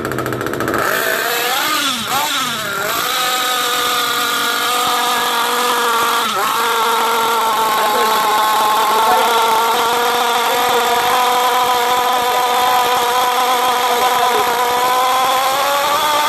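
Nitro RC car engine running at a steady high-pitched idle while its carburettor needle is being tuned. The pitch wavers up and down briefly near the start and climbs slightly near the end. There is one short click about six seconds in.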